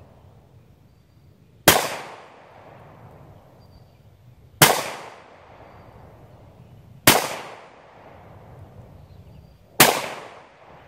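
Four gunshots a few seconds apart, each a sharp crack that trails off over about a second.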